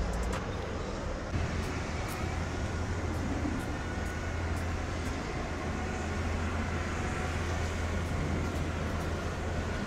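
Steady low hum of vehicle engines and traffic noise, growing firmer about a second in, with a few faint clicks.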